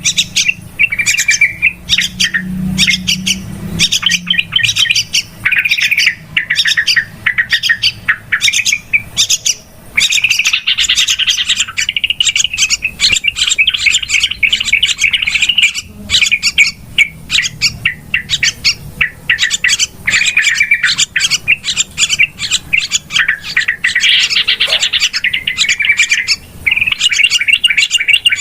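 Yellow-vented bulbuls (trucukan) chattering noisily, a dense run of rapid bubbly chirps and quick sharp notes with only brief pauses. This is the busy 'ribut' call used to lure bulbuls.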